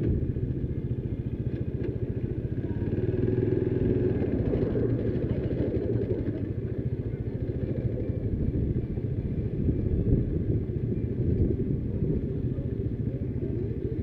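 Motorcycle engine running at low revs while the bike rolls slowly, a steady low rumble with slight rises in revs.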